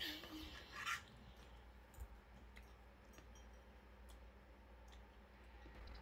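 Faint clicks and scraping of a metal fork against a plastic plate as spaghetti is twirled and eaten, with a louder scrape in the first second.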